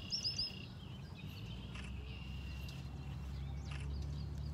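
Outdoor ambience: a bird gives a quick run of three or four short high chirps right at the start, over a low steady hum that grows a little louder through the rest.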